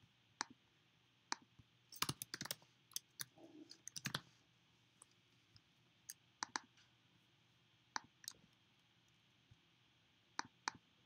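Scattered sharp clicks of a computer mouse and keyboard, some single and some in quick little runs, with quiet gaps between them.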